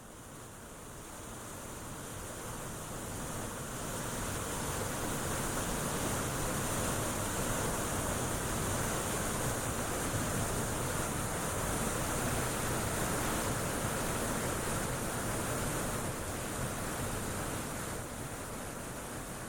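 Waterfall rushing, a steady wash of falling water that grows louder over the first few seconds and eases slightly near the end.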